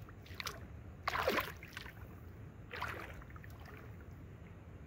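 Lake water splashing twice in short swishes, the first about a second in and the louder, the second near the middle.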